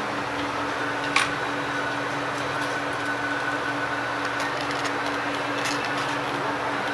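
Steady whir and hum of running workshop equipment, with one sharp click about a second in and a few faint ticks later.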